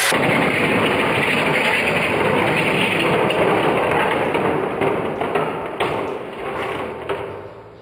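Toy slot cars racing on a plastic loop track: small electric motors whirring and the cars rattling loudly over the track pieces, with a few sharper clicks near the end as the noise fades.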